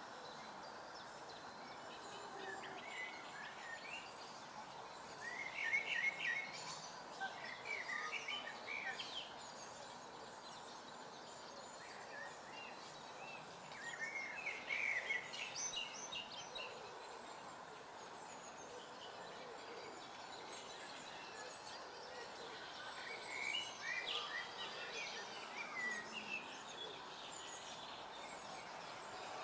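Songbirds singing short chirping phrases every few seconds over a steady background hiss.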